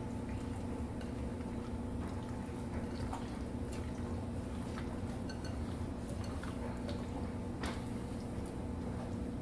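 Wet squelching of chicken wings being mixed by a gloved hand in marinade in a glass bowl, with scattered small clicks, over a steady low hum.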